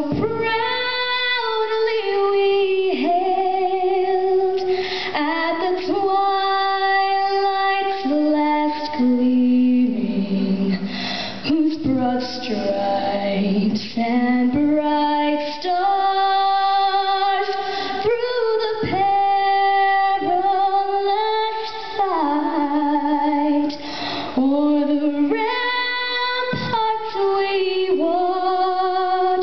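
A woman sings the national anthem solo into a microphone, moving through the melody and holding long notes.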